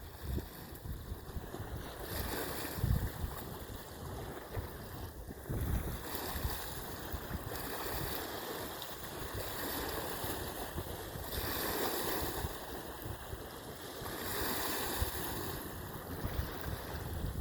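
Wind and water outdoors: a steady rushing noise that swells and fades every few seconds, with low gusts buffeting the microphone.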